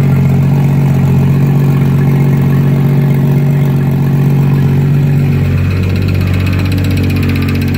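Toyota 7M-GTE turbocharged inline-six running steadily, then settling to a lower speed about five and a half seconds in, with a fast light ticking coming in near the end. The engine makes a noise the owner has not traced despite checking the rod bearings and oil pump and clearancing the oil pan.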